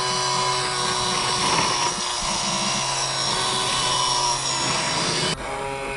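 Small electric motor and gears of a radio-controlled Tamiya CC-01 Jeep, whining steadily under load with a dense hiss on top. The hiss cuts off suddenly about five seconds in while the whine carries on.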